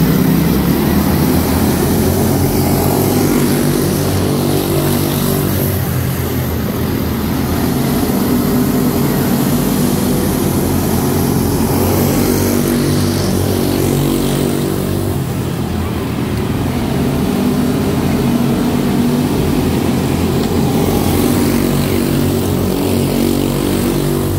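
A field of quarter midget race cars running together, their small single-cylinder Briggs & Stratton Animal engines making a steady drone. The engine tones shift and swell as cars go by.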